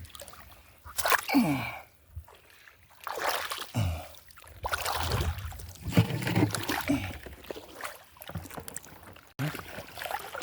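Water sloshing and splashing in irregular bursts, with short quiet gaps between them.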